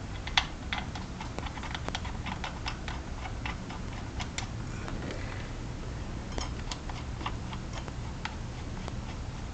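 Ratcheting socket wrench clicking in quick irregular runs as 12mm motorcycle brake caliper bolts are run in, with a short pause about halfway through.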